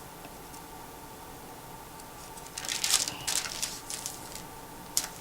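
Paper rustling and crinkling for about two seconds from about halfway in, as thin book pages are handled and turned, then a single sharp click near the end, over a steady low hiss.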